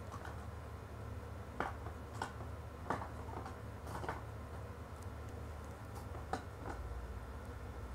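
Makeup brushes dropped one by one into a plastic brush holder, their handles clicking against the plastic and each other. There are about five light clicks, spread unevenly across a few seconds.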